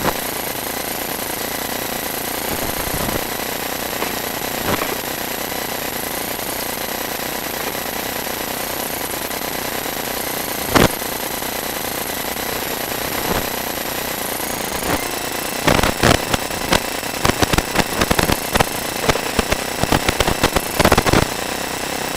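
Steady hiss from a sewer inspection camera's recording, with an occasional single knock. From about 15 seconds in, a quick run of irregular clicks and knocks, as of the camera head and push cable rattling against the scaled cast iron pipe.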